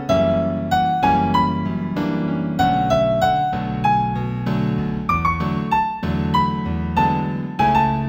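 Gentle new-age piano piece in A major: a melody of single struck notes over held low chords, with a quick run of notes about five seconds in and another near the end.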